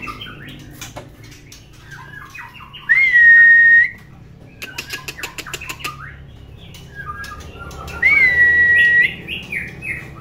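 Young male white-rumped shama (murai batu) singing: short chattering notes, and two loud, clear whistles held for about a second each, about three and eight seconds in. A quick run of clicks comes about five seconds in.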